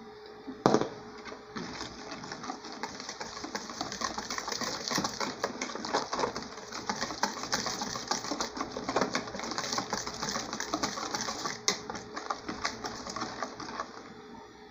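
Stainless wire whisk beating chocolate cake batter in a plastic bowl as flour is mixed in. The wires make a rapid, steady clatter and scrape against the bowl, with a sharp knock about a second in.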